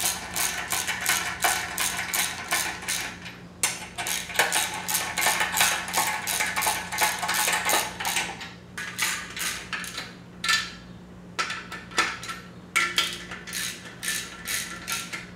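Ratchet wrench clicking in quick runs as nuts are snugged lightly onto the case-half studs of a VW Type 1 engine case. After about eight seconds the clicking comes in shorter spurts with brief pauses.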